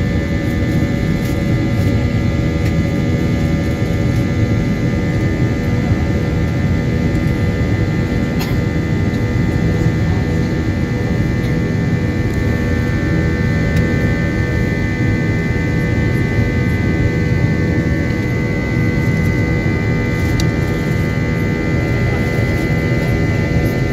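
Jet engine noise heard inside the cabin of an Airbus A321 on take-off: a steady loud rumble with several high whining tones over it, the whine growing a little stronger near the end.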